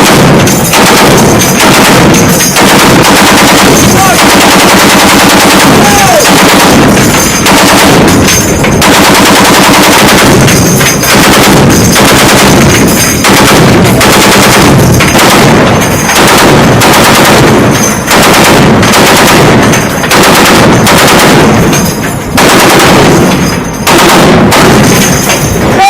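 M2 Browning .50 caliber heavy machine gun firing in long automatic bursts, very loud, with brief pauses between bursts every couple of seconds.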